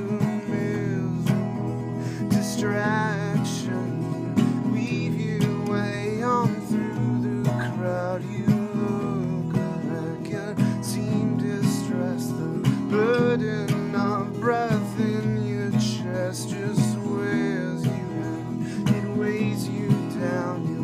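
Acoustic guitar strummed steadily, with a man's voice singing a wavering melody over it.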